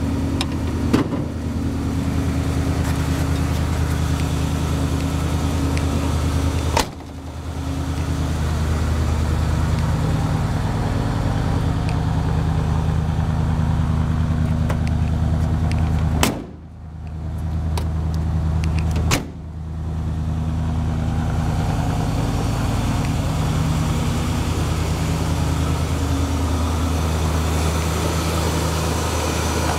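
A 1978 Dodge van's 318 V8 idling steadily, with four sharp knocks along the way.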